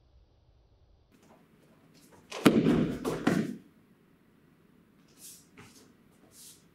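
Karate one-two punch combination done barefoot on a training mat: a quick cluster of thuds and sharp snaps as the feet land and the gi cracks with the punches. A few faint brief hisses follow near the end.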